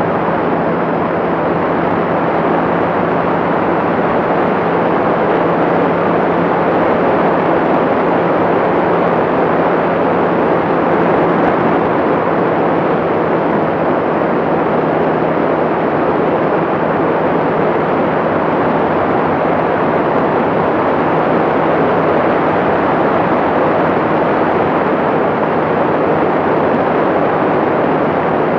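Light aircraft in steady level cruise: the constant drone of its engine and propeller under a heavy rush of wind over the microphone, with one low steady hum that does not change.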